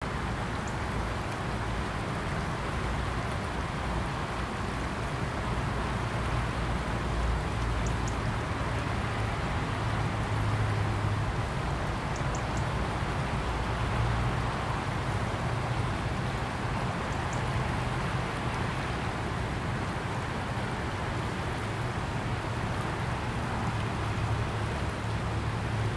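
River Vere's water rushing and rippling past the bank in a steady hiss, with an uneven low rumble underneath.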